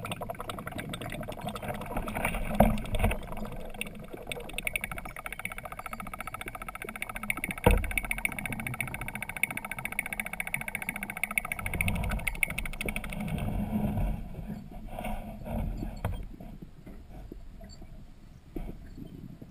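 Muffled underwater sound heard through a submerged camera: water noise and a low rumble, with a steady machine whine in the middle stretch that fades out about two-thirds of the way through. Two sharp knocks, about two and a half and about eight seconds in, are the loudest sounds.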